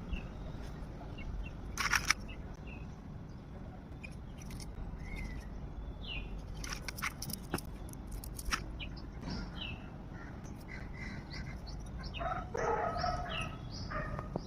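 Birds chirping intermittently, with a few sharp clicks, over a steady low background noise.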